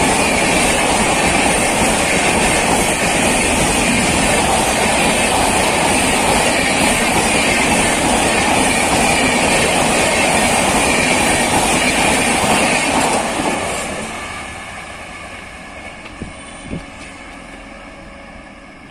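Passenger coaches of the 12380 Sealdah Jallianwala Bagh Express passing close at speed: a loud, steady rush of wheels on rails with clatter. About 13 seconds in, the end of the train passes and the sound falls away to a fainter rumble, with a couple of short knocks.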